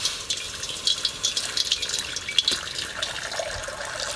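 A steady stream of water pouring into a wok, splashing and gurgling as it lands on the wok's bottom.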